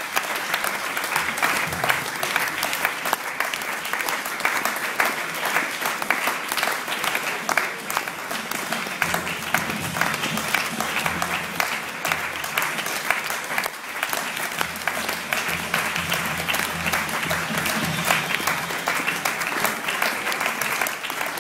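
Audience applauding steadily, many hands clapping together without a break.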